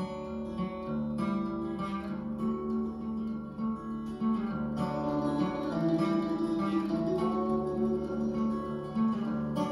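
Guitar music played back through the CLUB SANSUI MC-X77 mini component's S-X77 speakers and heard in the room: a steady flow of plucked and strummed acoustic guitar notes.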